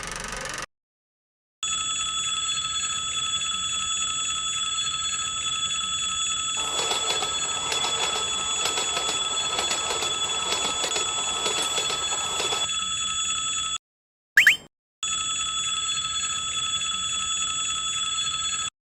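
Railroad level-crossing alarm bell ringing steadily, stopping and starting again a few times with short silences. For about six seconds in the middle a noisy clattering joins the ringing, and a brief rising tone sounds shortly after.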